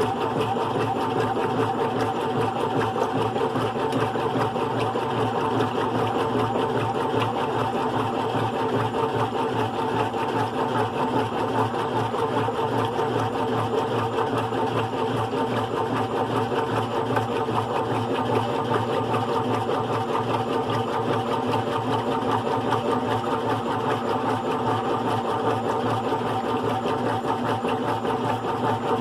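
GE Profile top-load washer with an agitator, running on its single-speed motor through a wash of bedding: a steady mechanical whir and hum.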